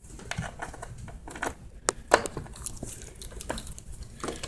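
Handling noises of a cable being plugged into a 1/8" audio jack on a prop backpack: scattered small clicks and rustles, with a sharp click about two seconds in.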